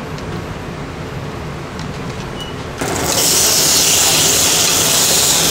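A steady low background hum, then about halfway a sudden loud sizzle starts as a halved tomato meets a hot cast-iron ridged grill pan over a gas flame. The sizzle carries on steadily.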